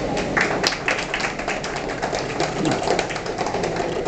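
Applause from a small group of people: many quick hand claps overlapping.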